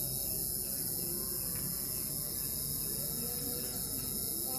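A steady, high-pitched chorus of crickets chirping.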